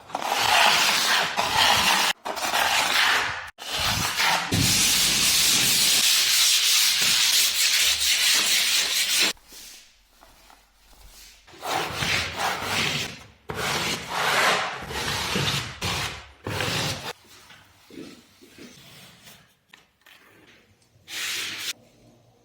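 A string of short clips of renovation work: rubbing and sanding noises, each cut off abruptly, with one unbroken stretch of sanding of about five seconds in the first half and quieter, patchier scraping later.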